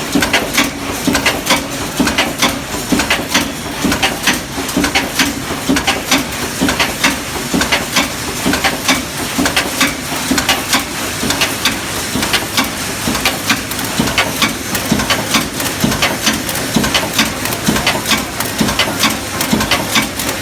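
Cold heading machine forming M6 hex bolts, running with an even, rapid rhythm of metal strikes, about two to three a second, over a steady machine hum.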